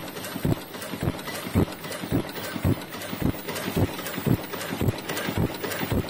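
HTD PM001-01-40 3-ply mask earloop welding machine running in production, its mechanism knocking in a steady rhythm of about two strong knocks a second, with lighter clicks between them over a steady hiss.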